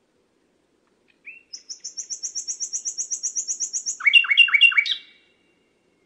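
Common nightingale singing one phrase: a short rising note, then a fast, high trill of about seven notes a second, ending in four louder, lower, falling notes.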